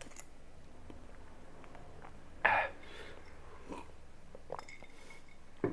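A person coughing once, short and sharp, followed by a few faint clicks.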